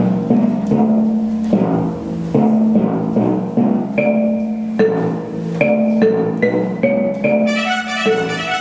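Instrumental music with a steady beat of short, repeating pitched notes. A brighter, high-pitched passage comes in near the end.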